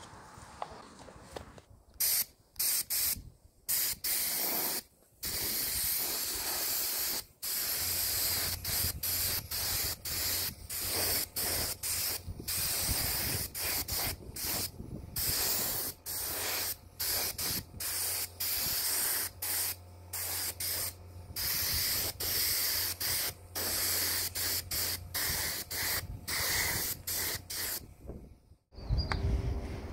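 Paint spraying in many short, rapid bursts of hiss with brief gaps between them, stopping just before the end. A steady low hum runs underneath from about a quarter of the way in.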